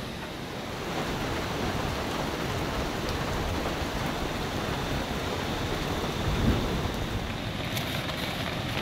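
Steady rain falling, an even hiss that grows a little louder about a second in.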